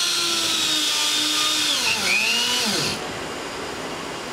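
Corded electric spin-welding tool running a steady high whine as it spins against a polyethylene tank, heating the plastic by friction. Its pitch dips about two seconds in, then winds down and stops about three seconds in.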